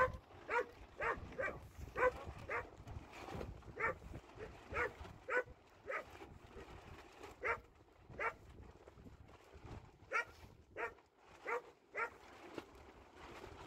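A dog barking over and over, short sharp barks about one or two a second in irregular runs, with a couple of brief pauses.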